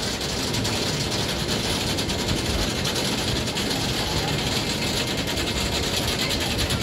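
Steel Curtain roller coaster train climbing its chain lift hill: a steady mechanical rumble with a rapid, even clacking of the anti-rollback ratchet.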